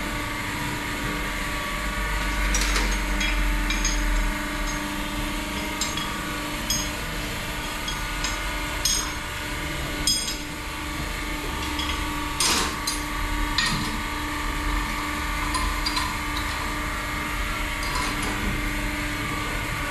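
Workshop machinery in a diesel fuel-pump shop humming steadily, with scattered sharp metallic clicks and knocks from tools being handled; the loudest knock comes about twelve seconds in.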